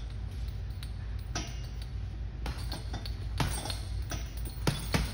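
Boxing gloves punching a hanging heavy bag, a handful of irregular strikes, with the bag's hanging chains clinking.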